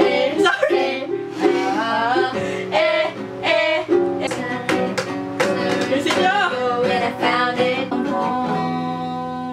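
Acoustic guitar and ukulele strummed together while women sing along, with a held chord near the end.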